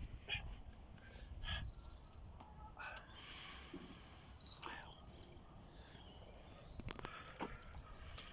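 Faint bird calls: short, high chirps repeating on and off.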